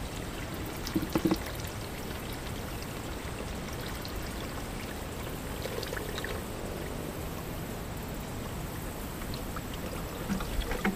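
One-to-one sugar syrup pouring in a steady stream into a beehive's division board feeder, with a couple of soft knocks from handling the jug or hive.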